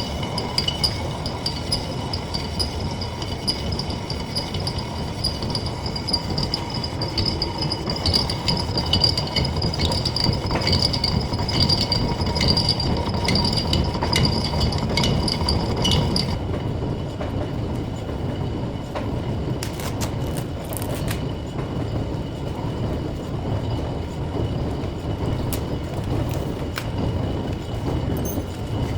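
Metal-turning lathe running steadily, with a high-pitched whine over its low mechanical noise that stops about 16 seconds in. A few sharp clicks follow a few seconds later.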